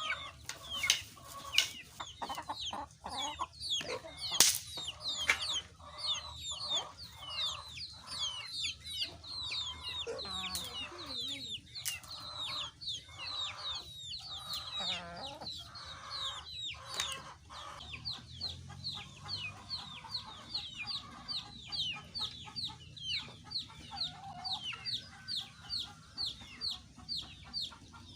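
Chickens clucking and calling, with a steady run of short, high, falling chirps repeating a few times a second, plus a few sharp clicks in the first few seconds.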